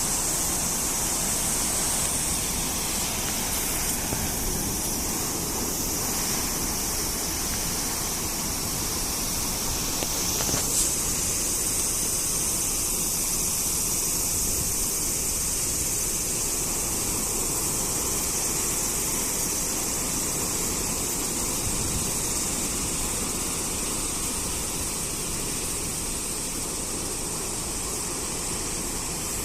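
Ocean surf from a typhoon swell, breaking waves making a steady rushing noise with a bright hiss.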